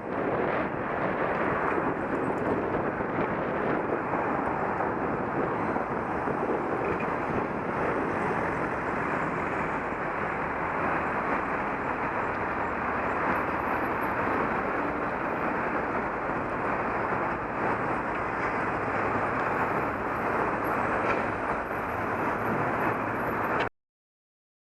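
Steady road traffic noise, an even rush with no single vehicle standing out, that cuts off abruptly to silence near the end.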